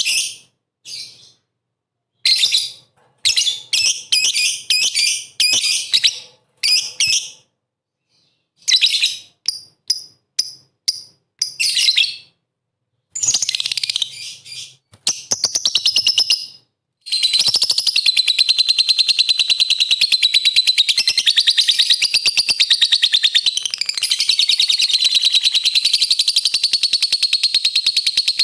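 Lovebird song: short bursts of shrill chirping separated by dead-silent gaps, then, a little past halfway, one long unbroken rapid chattering trill that runs on to the end. It is a lovebird lure recording of the kind played to provoke other lovebirds into singing.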